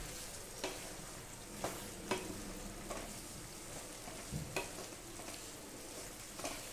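Spatula stirring boiled chickpeas into a thick masala gravy in a kadhai, with irregular wet scrapes and knocks against the pan roughly once a second. A soft steady sizzle from the pan runs underneath.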